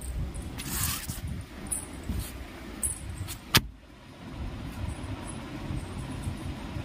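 Handling noise from the recording phone: rumbling and rustling with a few soft knocks, then a sharp click about three and a half seconds in, after which the noise is lower and steady.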